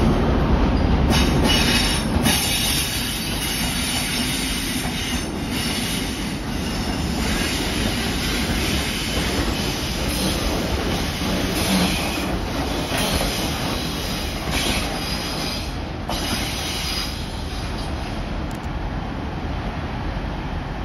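Slow train of yellow Network Rail track vehicles hauled by a Class 43 HST power car passing along curved station track, its wheels squealing steadily with high-pitched tones and clicking over the rail joints.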